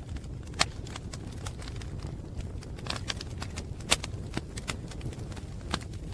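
Wood fire crackling: irregular sharp pops and snaps over a steady low rumble of burning, with louder snaps about half a second in, near four seconds and near six seconds.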